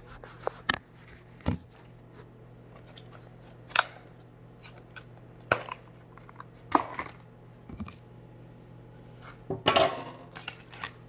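Scattered sharp clicks and knocks of kitchen items being handled while someone rummages for a carton of milk, with the loudest cluster near the end.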